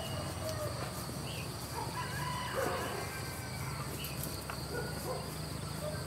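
Rural outdoor ambience: a steady high-pitched buzz of insects, with a few faint bird chirps.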